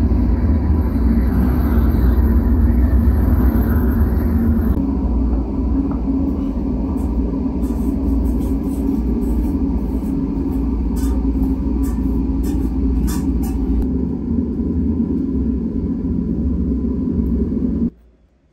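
Gas torch flame running with a steady, deep rumble, with a few sharp clicks over it partway through; it cuts off suddenly near the end.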